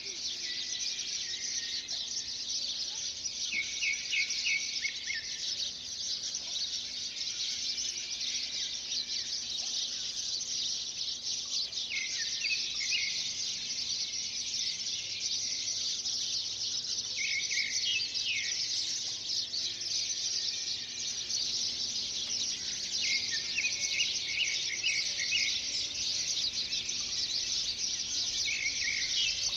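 Birds chirping in a dense, steady high chorus, with short clusters of quick chirps coming every five seconds or so.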